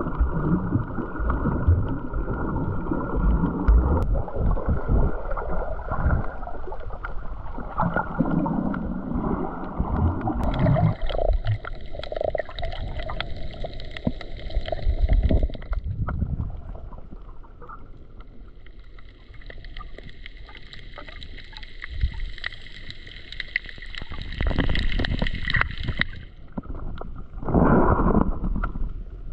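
Muffled water sloshing and gurgling picked up by a camera held underwater while snorkeling. A dense low rumble gives way about ten seconds in to a quieter, thinner hiss, and the rumble swells again near the end.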